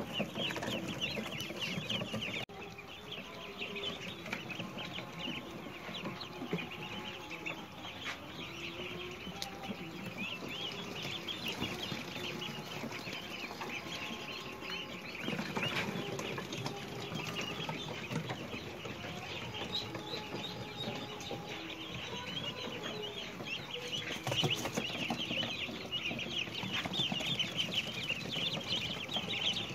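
A brood of three-day-old chicks peeping continuously: a dense chorus of many short, high peeps.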